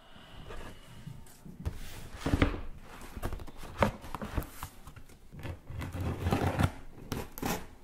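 Scissors slicing the packing tape along the seam of a cardboard shipping box, amid a string of irregular scrapes, knocks and rustles as the box and its flaps are handled.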